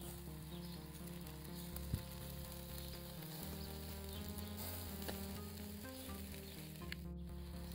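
Instrumental background music of held notes changing in steps, over a steady sizzle of chicken legs and zucchini grilling on a grate over charcoal. There is a single sharp click about two seconds in.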